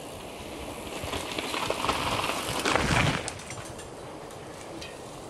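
A mountain bike coming fast down a rocky dirt trail and passing close by: tyres rolling over dirt and grit, growing louder, then falling away suddenly about three seconds in as the bike goes past.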